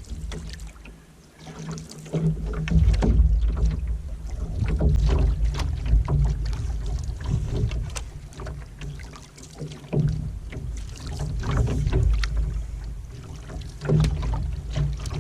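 Canoe on a lake: water swishing around paddle and hull, with scattered light knocks, over a low rumble that swells and fades every few seconds.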